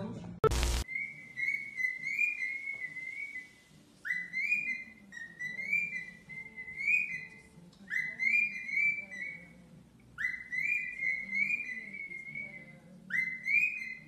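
A pet parrot whistling the same short phrase over and over; each phrase opens with a quick rising swoop and runs into a string of wavering high notes. A single loud thump about half a second in.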